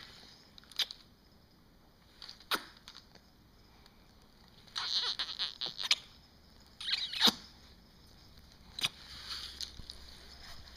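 A baby's short breathy giggles and squeaks, in two brief bursts about five and seven seconds in, among scattered soft clicks and rustling.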